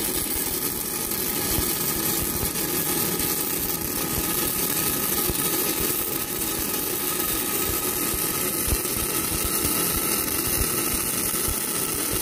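Stick (SMAW) welding arc burning steadily, a continuous crackling hiss, as a tack weld is laid on the bottom of a pipe joint.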